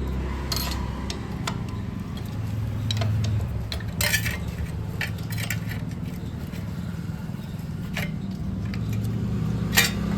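Metal hand tools clinking and tapping against a motorcycle engine's casing during reassembly: a scatter of short, sharp metallic clinks over a steady low hum.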